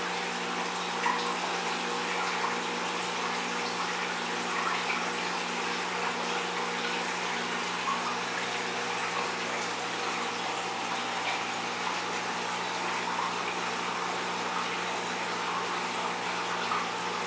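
Aquarium water circulating, a steady rush of running water with a few steady low tones of hum beneath it.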